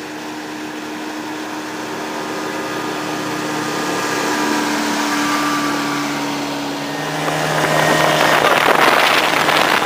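Tohatsu 35 hp outboard motor running at speed, growing louder as the speedboat passes. About seven seconds in it is heard from aboard, under a loud rush of wind and water.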